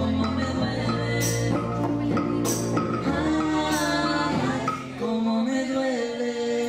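A small band playing live: singing over keyboard and bowed cello, with held melody notes over a bass line. A sharp high percussion hit comes about every second and a bit, and the music thins a little about five seconds in.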